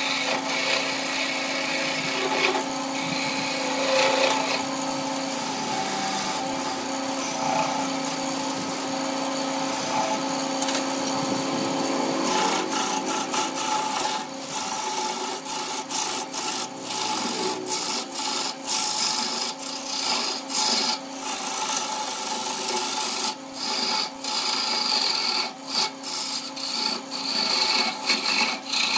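Wood lathe running while a hand-held turning tool cuts into a spinning wooden blank: a continuous scraping, rasping cut with the lathe's steady hum under it. After about twelve seconds the cut turns choppy, breaking off and biting in again many times.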